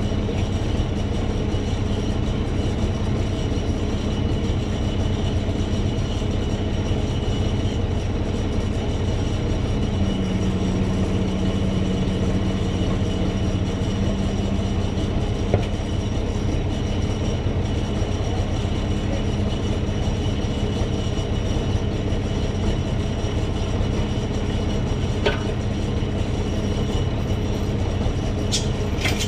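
A heavy engine running steadily, its low hum growing a little stronger about a third of the way in.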